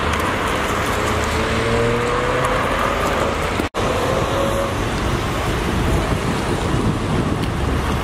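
Road traffic passing on a wet road: a steady wash of car tyre and engine noise, broken by a momentary gap a little over three and a half seconds in.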